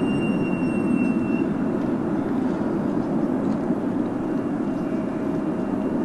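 Jet airliner engine noise: a steady rumble with a thin high whine that fades out about a second and a half in.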